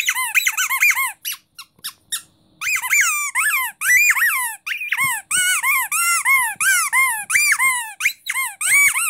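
Green rubber starfish squeaky dog toy squeezed over and over by hand, giving quick squeaks that each rise then fall in pitch. There is a short break about two seconds in, then a steady run of about three squeaks a second.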